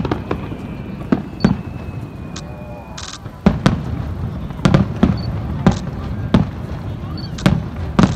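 Aerial fireworks shells bursting over and over in an irregular run of sharp bangs, sometimes several in a second. A thin whistle slides slowly down in pitch through the first few seconds.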